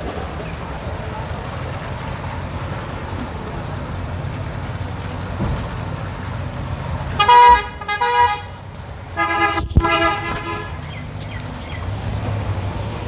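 Vehicle horns honking: two short toots about 7 and 8 seconds in, then a longer honk at a lower pitch, over a steady low background rumble.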